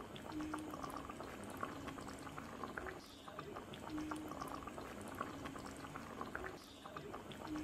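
A pot of cassava-leaf curry simmering, bubbling steadily with many small irregular pops.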